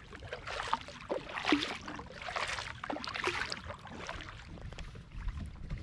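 Double-bladed kayak paddle stroking through calm water, about one stroke a second, each stroke a swish of water with small drips and plops off the blades.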